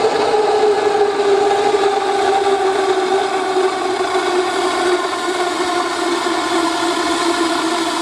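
Siphon-type spray oil burner firing into a steel tube, giving a loud steady pitched drone over a rushing noise. The pitch sinks slowly as it runs.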